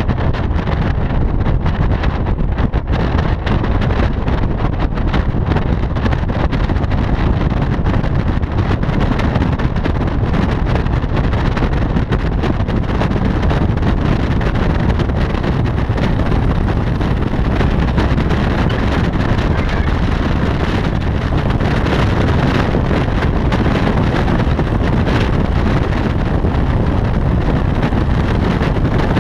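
Steady wind rush and rumble on the microphone of a camera on the roof of a moving car, with the running engine of a Piper Cub flying close overhead mixed in. The level stays steady throughout.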